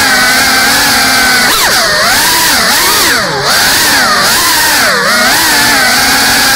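GEPRC CineLog 35 cinewhoop's four brushless motors and ducted propellers whining loudly. The pitch holds steady for about a second and a half, then repeatedly drops and climbs back about once a second as the throttle is eased and punched through turns.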